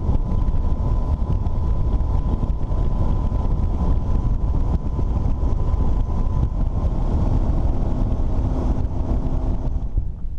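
Strong wind buffeting the microphone as a heavy low rumble, with a thin steady hum underneath. It eases off near the end.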